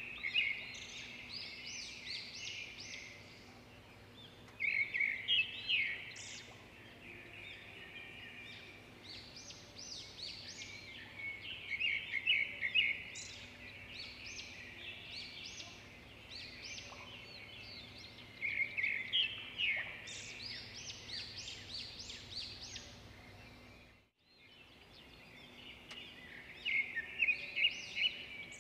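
A songbird singing: a rapid, chirping phrase of two to three seconds, repeated about every seven seconds, over a faint steady hum. The sound cuts out briefly about twenty-four seconds in.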